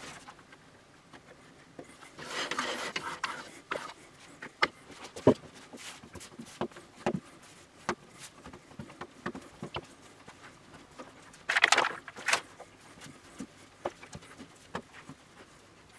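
Hands kneading and pressing crumbly shortcrust dough together on a countertop: soft irregular taps and pats, with two short rubbing scuffs, about two seconds in and near twelve seconds.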